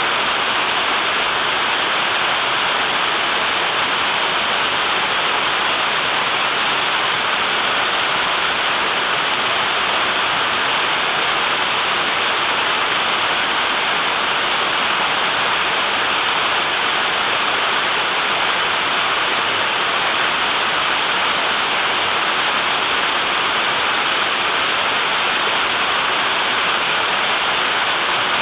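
Small waterfall with water pouring down and splashing, a steady even rush.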